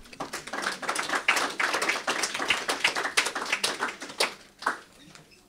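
Audience applauding: a dense run of clapping that starts at once, thins to a few last claps and stops about five seconds in.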